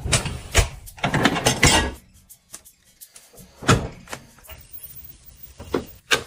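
Siemens dishwasher racks sliding and rattling, with dishes clinking, through the first two seconds. A single knock comes at about four seconds in as the dishwasher door shuts, and a couple of sharp clicks follow near the end.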